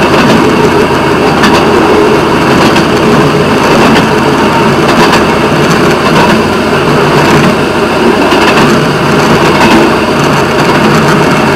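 Railway motorcar (track speeder) running along the rails: a loud, steady engine drone mixed with wheel noise on the track, with a few sharp clicks along the way.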